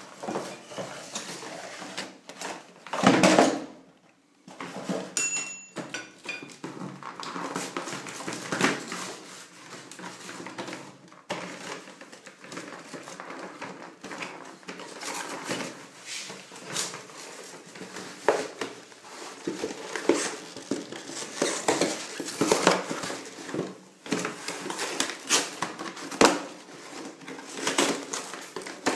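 Cardboard packaging being handled and opened: irregular rustling and scraping of box flaps, with clicks and clinks of the chrome shower fittings against the box. A loud knock about three seconds in.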